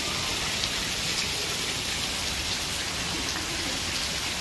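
Rain falling steadily, an even wash of drops.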